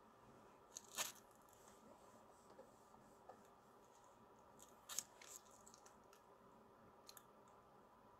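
Near silence: room tone with a few faint, short clicks and crackles of handling noise. The loudest comes about a second in, a small cluster about five seconds in, and a quick pair near the end.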